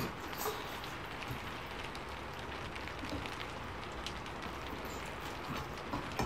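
Steady heavy rain falling, an even hiss, with a few faint clicks of eating from a plate.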